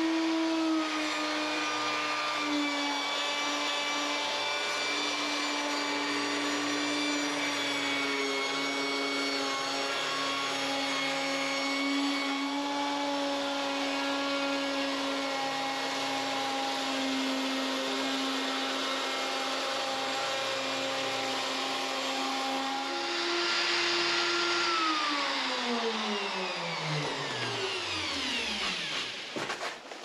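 Handheld electric router on a router sled, running steadily as it planes an epoxy-and-wood slab door. About 23 seconds in its whine steps up slightly in pitch. Then it is switched off and winds down in a falling whine over about four seconds.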